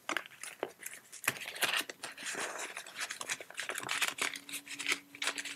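Paper banknotes and a paper envelope rustling and crinkling as they are handled, the notes slipped into the envelope: a run of short, irregular rustles.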